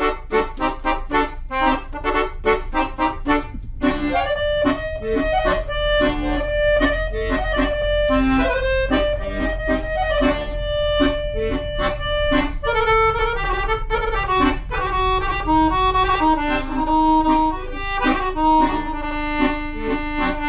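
Background instrumental music led by an accordion: short repeated chords for about the first four seconds, then a sustained melody.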